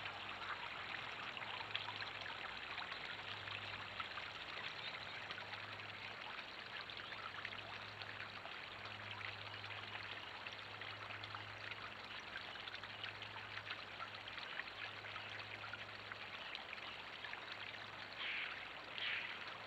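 Small garden pond waterfall splashing steadily as water spills over a ledge into the pond below, with a low hum coming and going. Two short, louder sounds near the end.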